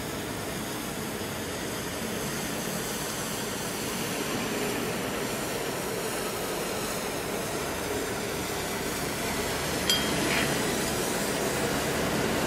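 Hi-rail truck rolling along the rails, a steady rumbling noise that grows slowly louder, with one sharp clink about ten seconds in.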